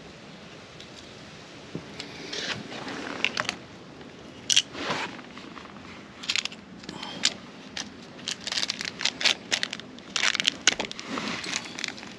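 Small parts and packaging being handled: irregular scraping, crackling and sharp clicks, starting about two seconds in.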